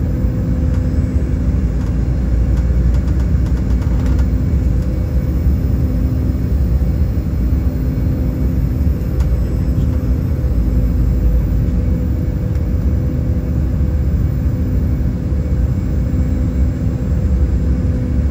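Cabin noise inside an Embraer E195 jet airliner in flight: a steady low rumble of airflow and its two turbofan engines, with a thin steady hum over it.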